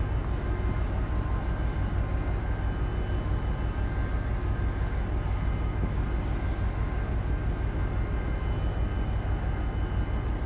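Steady low machinery rumble, unchanging throughout, with a few faint steady whining tones above it.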